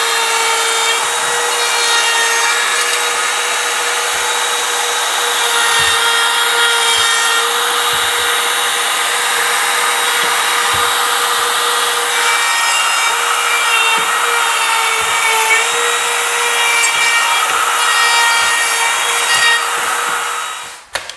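Makita 18V cordless trim router running steadily, its bit cutting hinge recesses into a wooden door frame along a hinge jig's template. A steady high motor whine carries the whole time, with rasping cutting noise that swells and fades as the router moves, and the motor cuts out near the end.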